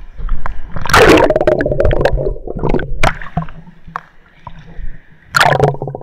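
Water splashing and gurgling against an action camera in a waterproof case as it goes into a river pool, muffled and rumbling while under the water. There is a loud splashing burst about a second in and another near the end.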